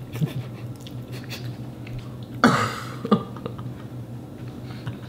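Two people chewing mouthfuls of spaghetti, with faint small clicks, over a steady low hum. About two and a half seconds in comes a short, loud breathy vocal outburst, with a smaller one just after.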